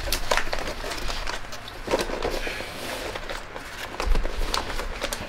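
Objects being handled and moved about: a series of clicks, knocks and rustles, with heavier thumps about two seconds and four seconds in.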